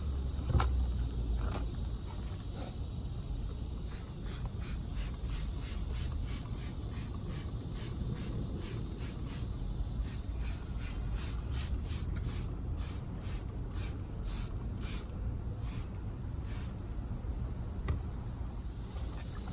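Trigger spray bottle of wheel and tire cleaner squirting in quick repeated pumps, about two a second, starting about four seconds in and going on for roughly twelve seconds, over a low steady rumble.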